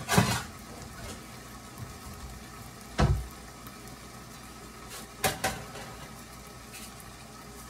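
Shrimp cooking in sauce in a covered pan with a glass lid: a steady low sizzle broken by a few sharp pops. The loudest pop comes about three seconds in, and two more follow close together just past five seconds.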